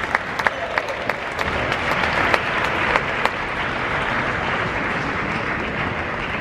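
Arena crowd applauding the end of a table tennis rally. Sharp single claps stand out over the first three seconds, then the clapping goes on as an even patter that slowly dies down.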